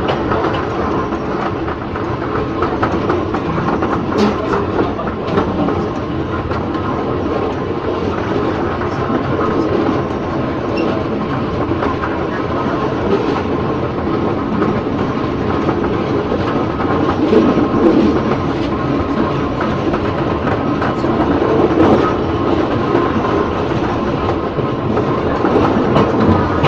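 Former JR 203 series electric multiple unit running on the track: a steady running noise with occasional faint clicks.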